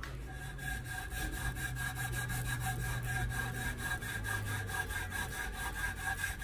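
A polishing strip pulled rapidly back and forth, shoe-shine style, around a silver coin ring on a wooden mandrel: steady rubbing strokes in a fast, even rhythm.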